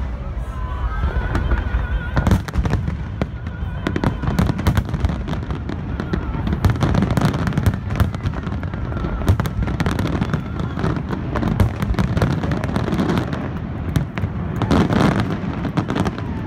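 Aerial firework shells bursting in rapid succession: many sharp bangs and pops over a continuous low rumble, with a loud cluster of bursts near the end.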